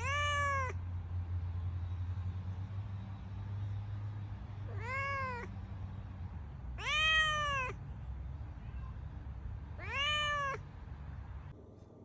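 A cat meowing four times, each meow a high, clear call that rises and then falls in pitch, with a low steady hum underneath that stops just before the end.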